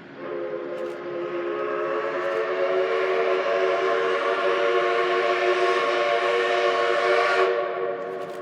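Train sounding one long, steady horn blast of several notes at once, over rising running noise. It swells over the first few seconds and cuts off sharply near the end.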